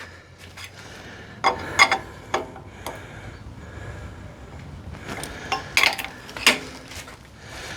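Scattered metallic clinks and knocks as a hoist-hung electric motor assembly is nudged into alignment against a manual transmission, over a low steady hum. Most of the knocks come in two clusters, one about a second and a half in and one about five seconds in.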